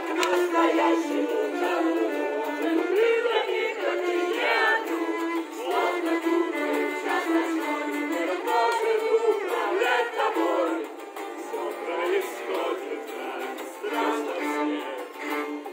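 Cello played with a bow alongside a strummed acoustic guitar, performing a rock song as a street busking duo.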